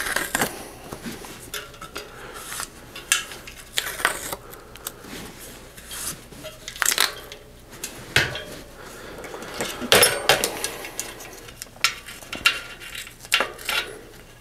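Scattered light metallic clinks, knocks and rattles as a spoked bicycle wheel is handled and turned while cloth rim tape is fitted into the rim, with the busiest clatter about ten seconds in and again near the end.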